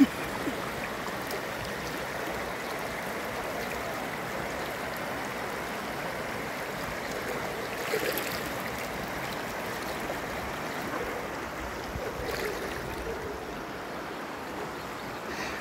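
Floodwater running fast, a steady rush of moving water.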